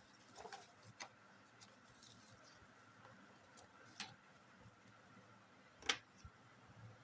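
A few scattered short clicks and taps from handling small objects, the loudest about six seconds in, over near silence.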